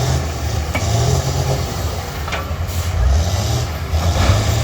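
School bus engines running and revving, rising and falling in pitch, with a few sharp knocks.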